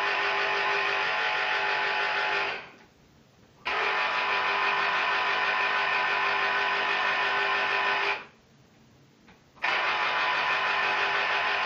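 Electric citrus juicer motor whirring as halved oranges are pressed onto its spinning reamer. It runs, stops about two and a half seconds in, starts again about a second later, stops again past the eight-second mark, and starts once more near the end, each time the fruit is lifted and pressed down again.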